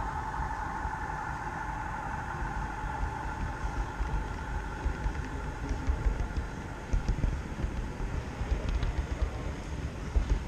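Model train rolling along its track, heard from a camera riding on the train: a steady rumble of wheels on rails with irregular clicks and knocks, under the murmur of a large exhibition hall. A faint whine fades out over the first few seconds.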